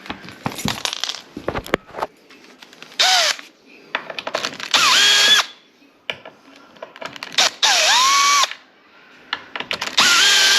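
Cordless drill driving screws for a door striker plate, in four short runs. Each run winds up in pitch and then holds steady. Light clinks and taps of screws and hardware being handled come in the first couple of seconds.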